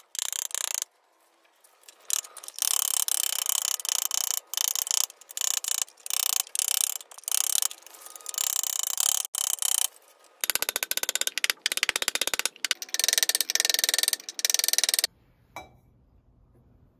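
A small hammer striking a copper pot body as it is hand-forged into shape, with fast, tightly spaced blows in runs of about a second separated by short breaks. The hammering stops about fifteen seconds in.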